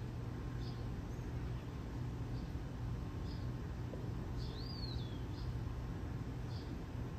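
Faint high bird chirps about once a second, with one longer call that rises and falls about halfway through, over a steady low hum.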